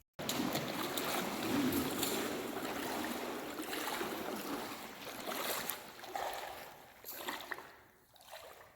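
Rushing water of a cave stream: a steady wash of water noise that fades away near the end.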